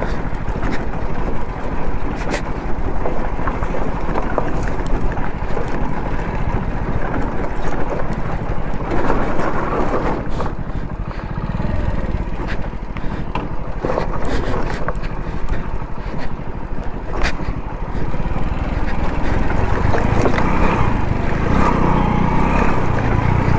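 Hero Splendor motorcycle's small single-cylinder engine running while the bike rides over a rough, rocky trail, with frequent knocks and rattles from the stony ground.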